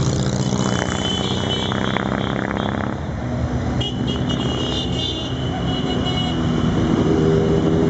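Procession of motorcycles and trikes riding past at low speed, several engines running at once in an overlapping drone; the engines grow louder again near the end as more bikes close in.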